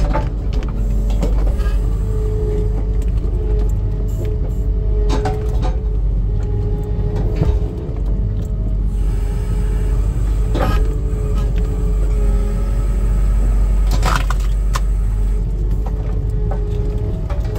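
Skid steer engine running steadily with a low rumble and a steady whine over it, broken by a few sharp knocks.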